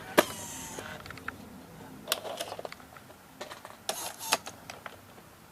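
Sears (Hitachi-made) full-size VHS camcorder ejecting a tape: a sharp click and a brief motor whir at the start, then scattered mechanical clicks and a cluster of clunks about four seconds in.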